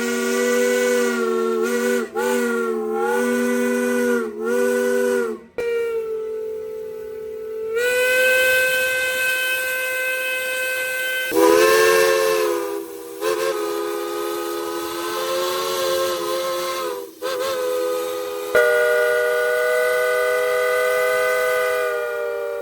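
Steam whistles on antique steam traction engines blowing long multi-note chords, one after another. The pitch sags and recovers a few times early on as the whistle valve is worked, and the chord changes abruptly several times as one whistle gives way to another.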